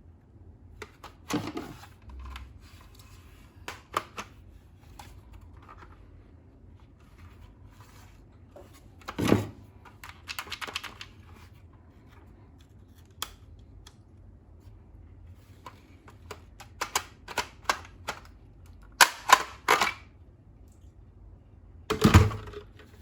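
Handling of a plastic toy blaster and its packaging: irregular sharp plastic clicks and knocks, with a quick run of clicks near the end.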